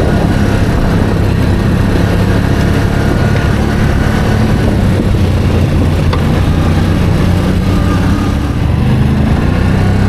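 Quad bike (ATV) engine running steadily while riding along a dirt forest road, with a faint single click about six seconds in.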